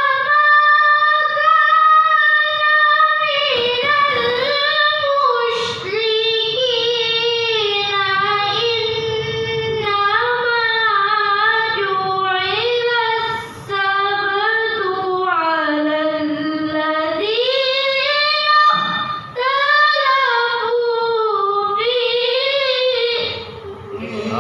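A girl reciting the Qur'an in the melodic tilawah style into a handheld microphone: long held phrases with wavering, ornamented pitch, dipping low in the middle and climbing again, broken by short breaths about halfway through and near the end.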